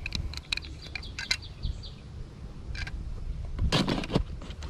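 Metal clicks and clinks from a pair of Klein tongue-and-groove (channel lock) pliers being handled and slid back into a tool bag among other hand tools, with a louder burst of clattering near the end.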